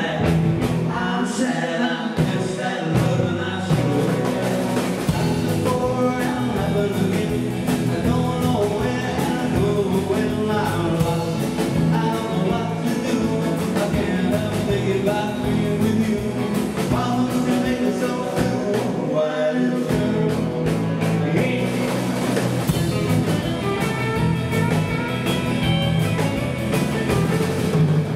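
Live rock and roll band playing loudly through a PA: electric guitars, electric bass and a drum kit.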